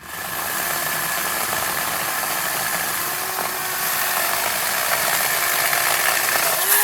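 Teccpo 40-volt cordless electric chainsaw starting up abruptly and running steadily with a constant high whine, its chain cutting into dry wood.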